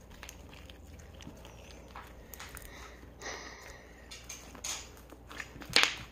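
Hands kneading and squeezing a lump of overactivated slime: scattered soft squishing clicks and crackles, with one louder click near the end.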